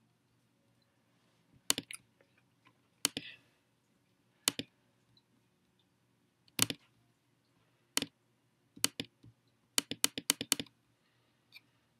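Sharp clicks of a computer mouse every second or two, then a quick run of about seven clicks near the end, over a faint low hum.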